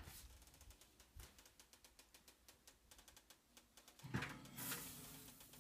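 Near silence, then about four seconds in a clunk and a short scrape as a metal loaf pan is set onto and pushed along a wire oven rack.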